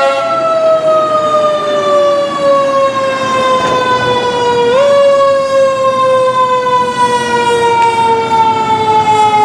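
Federal Q mechanical siren on a fire engine, sounding one steady wail whose pitch sinks slowly as the rotor coasts down. It is revved back up briefly about halfway through, then sinks again.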